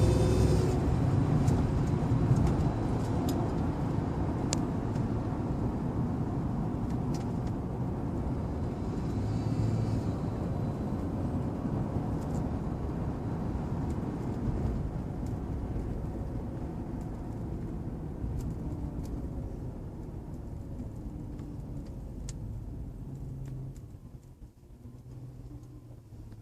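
2004 Lincoln Town Car under way, with road and drivetrain rumble that slowly dies down as the car slows. A faint whine rises and falls in pitch at times, the noise the owner suspects comes from a failing torque converter.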